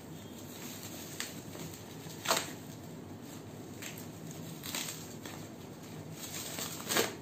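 Plastic wrapping on a cardboard box being cut with scissors and pulled off: short crinkling and rustling bursts, loudest about two seconds in and again near the end.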